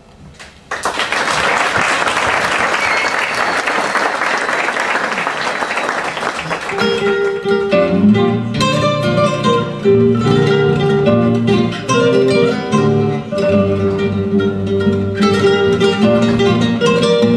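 Audience applause for about six seconds, then several classical guitars start playing a pasacalle together: plucked melody notes over a steady, rhythmic bass line.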